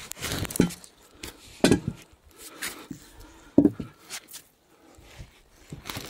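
A man's heavy steps crunching through snow among birch trees: slow, uneven thumps about once a second, with rustling between them.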